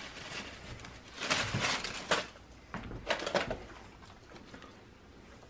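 A small plastic snack bag being shaken out over a tortilla: the bag crinkling and bits of food pattering down, in a few short bursts in the first three and a half seconds.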